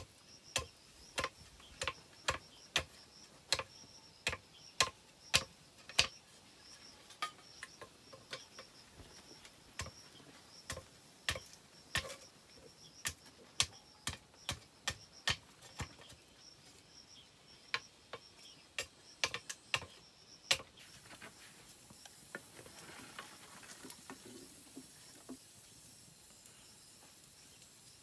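Machete blade striking a bamboo pole: sharp, separate knocks about one or two a second, uneven in loudness, stopping about twenty seconds in.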